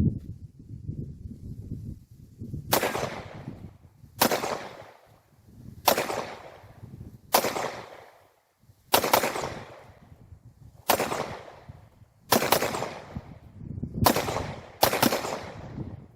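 Nine pistol shots from a Polymer80 build with a Glock 23 barrel, chambered in .40 S&W, fired one at a time about a second and a half apart, the last two closer together. Each shot is a sharp crack with a ringing echo trailing off.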